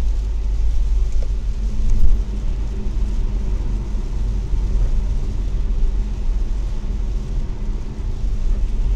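Car cabin noise at motorway speed on a wet road: a steady low rumble of engine and tyres with an even hiss from the wet tarmac.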